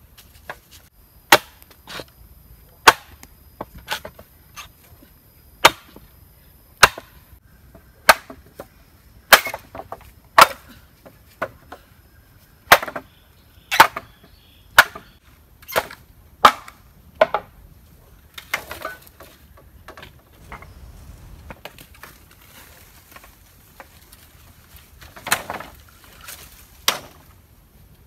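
Machete chopping into a green bamboo stalk: sharp woody strikes about once a second, thinning out after the first two-thirds, with two more strikes near the end.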